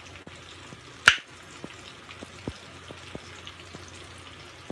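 Faint scattered crackling ticks, as of fish frying in hot grease, with one sharp click about a second in.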